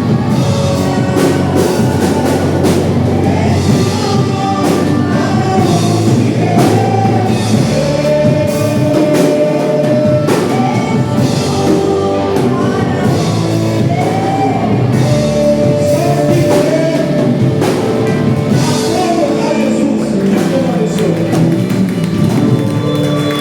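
Live worship band playing with a singer: drum kit, guitar and a sung melody in a steady, full-band song, with the echo of a large hall.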